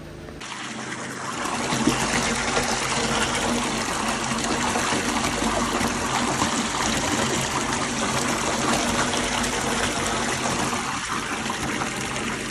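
Salt brine pouring from two overflow pipes and splashing into the brine maker's 500-gallon mixing tank as it circulates: a steady rush of falling water that starts abruptly about half a second in, with a faint low steady hum beneath it.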